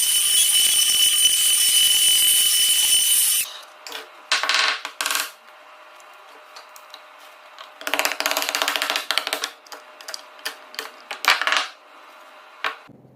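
A power tool running with a steady high whine, cutting off abruptly about three seconds in, followed by several short bursts of scraping noise and sharp clicks.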